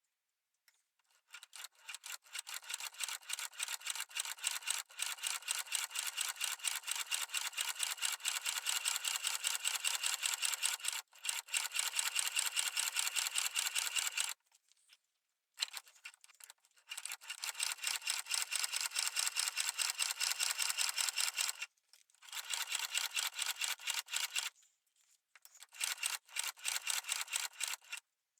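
Sewing machine stitching the folded edges of a leather case, running in four runs of rapid, even clatter with short stops between them, the longest run about twelve seconds.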